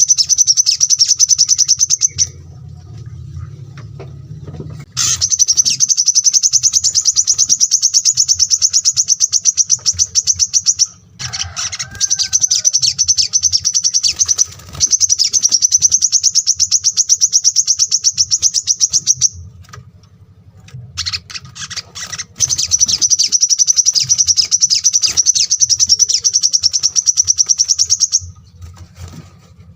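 Small songbird singing long, very fast high trills, each run lasting several seconds with short pauses between, over a faint low hum.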